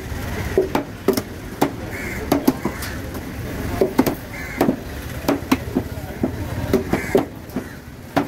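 A heavy chopping knife striking down through trevally pieces onto a wet wooden cutting board: sharp chops at an uneven pace of about two a second.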